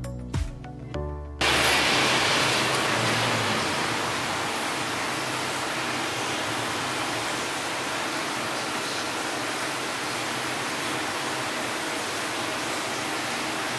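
Background music cuts off about a second and a half in, followed by a steady, even hiss.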